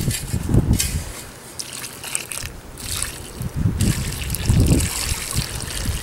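Water poured from a plastic bucket, splashing and trickling onto dry soil and a freshly planted prickly pear pad, starting about halfway through.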